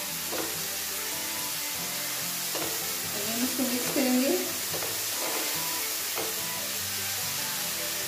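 Shredded cabbage and capsicum sizzling in oil in a nonstick frying pan as a spatula stirs and scrapes them, just after soy sauce has gone in. The scraping comes in a few strokes during the first six seconds or so. The sizzle stays steady under soft background music.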